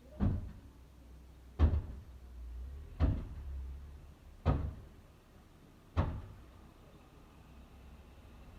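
Five heavy blows struck against a door, about one and a half seconds apart, each a deep thud with a short ring. They stop about six seconds in.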